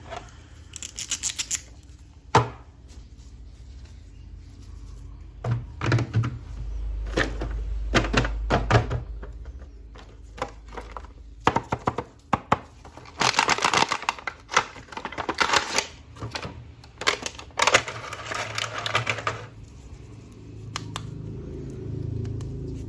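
Hands handling a plastic action figure and its packaging: scattered sharp clicks and taps, with two runs of rapid clattering clicks in the second half.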